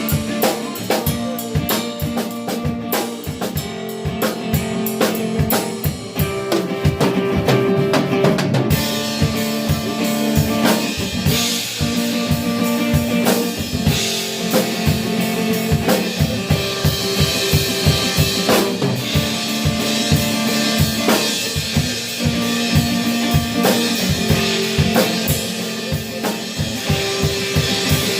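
A live band playing, led by a busy drum kit with kick drum, snare and rimshots over sustained chords.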